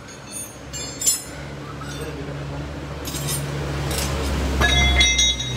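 Steel hand tools clinking and clanking against a car's front suspension parts during a shock absorber job: several sharp metallic clinks with a short ring, the loudest cluster near the end. A low hum grows louder underneath.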